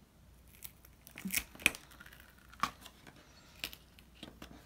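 Glitter heat transfer vinyl being picked and peeled off its clear carrier sheet with a weeding hook: scattered short crackly tearing sounds, about six of them, the sharpest a little before two seconds in.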